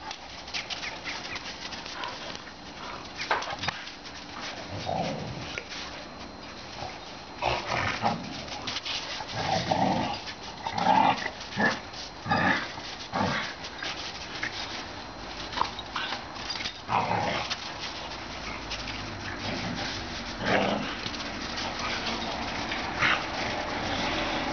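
Two dogs playing together, giving short bursts of vocalising, with a dense run of them in the middle.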